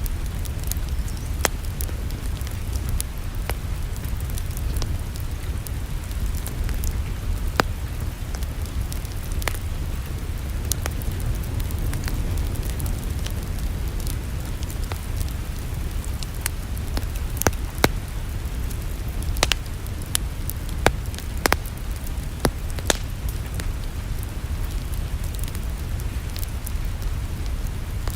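Wood fire crackling in a fireplace: irregular sharp pops and snaps, coming closer together about two-thirds of the way through, over a steady low rumble.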